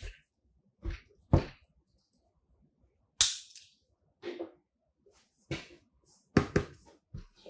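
Cardboard product box being handled on a tabletop: a string of short, sharp taps and knocks, several in all, the loudest about three seconds in.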